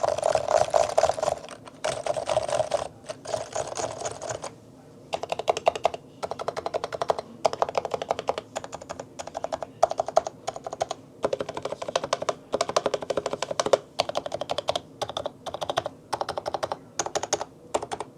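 Realforce RC1 Topre keyboard, modded with Metakeebs 55g domes, lubed stabilizers and housings and silencing rings, typed on rapidly: dense runs of keystrokes with short pauses between them, the longest about four and a half seconds in.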